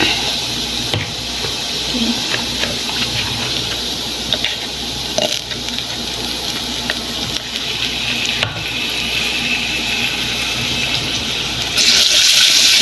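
Water running from a kitchen tap into a sink, over a steady low hum, with a few small clicks; the rush of water grows suddenly louder near the end.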